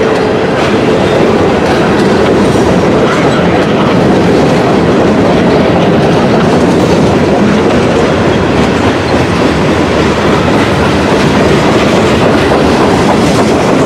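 Freight train cars rolling past close by: a loud, steady rumble of steel wheels on the rails with clickety-clack over the rail joints.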